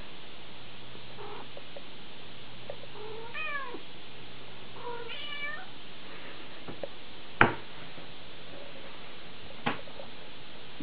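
A domestic cat meows twice, two short calls about three and a half and five seconds in, over a steady hiss. Two sharp knocks follow later, the first of them the loudest sound.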